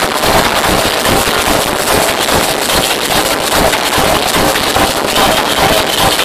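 Loud dance music from a DJ's sound system, heard close up and sounding dense and harsh.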